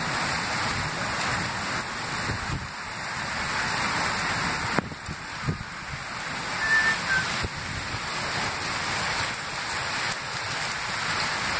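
Heavy thunderstorm rain pouring steadily, with a few sharp taps about halfway through.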